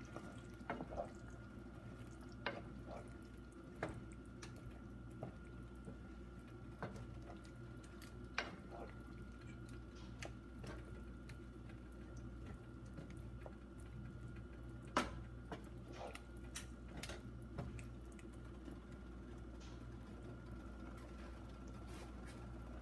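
Tomato sauce with eggplant and onion simmering in a pot: faint liquid bubbling with scattered sharp pops and clicks, the odd knock of a wooden stirring spoon, over a steady faint hum.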